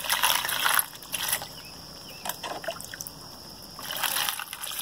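Water poured from a plastic jug in several splashes over a colander of tumbling stones and metal relics, rinsing a rock tumbler's load. The longest splash comes at the start, with shorter ones about one, two and a half and four seconds in.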